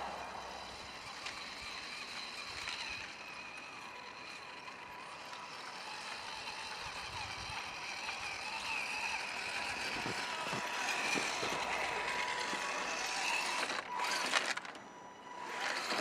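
Electric motor and gears of an Axial SCX10 Deadbolt RC crawler whining as it drives, the pitch wavering with throttle and growing louder, with a brief drop near the end.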